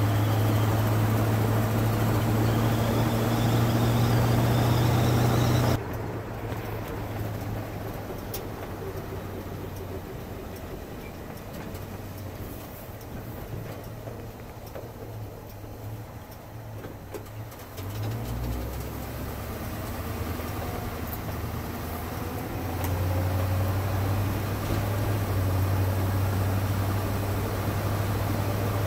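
In-cab sound of a 1968 International Harvester 1100D pickup's 345 cubic-inch V8 pulling steadily at road speed, with tyre and road noise. About six seconds in the engine note drops suddenly as the throttle is lifted and the truck coasts and slows; around 18 seconds in it picks up again, and near the end it is back under load and louder.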